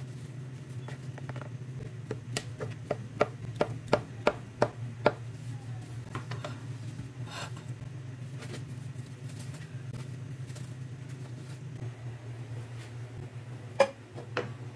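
Kitchen knife chopping on a plastic cutting board: a quick run of about nine sharp knocks, roughly three a second, a couple of seconds in, then two more knocks near the end, over a steady low hum.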